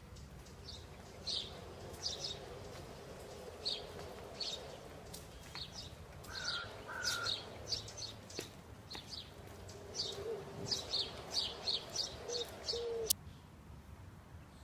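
Birds chirping in a garden: many short, high chirps come in quick runs over a steady background hiss, with a few lower calls among them. The birdsong stops suddenly near the end.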